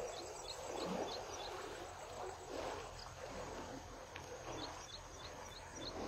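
Outdoor nature ambience: a soft, steady rushing haze with a bird's short high chirps, about three a second, in the first second or so and again from about halfway.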